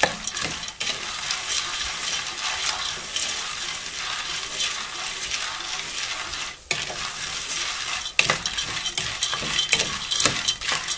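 Dried corn kernels toasting in a hot metal pot, sizzling steadily as a wooden spoon stirs and scrapes them, with scattered sharp clicks that come more often in the last few seconds. The kernels are being browned a little more, most of them already burst.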